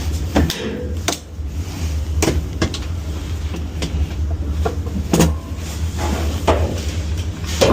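Scattered plastic and metal clicks and knocks, about eight of them at irregular intervals, as a suspension rod is unhooked from its cone and pulled down and out of a Samsung top-loader washer. They play over a steady low hum.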